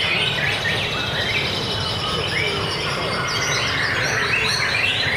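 White-rumped shama (murai batu) singing a continuous, fast run of varied chirps and whistles, mixed with other birdsong over a steady low background din.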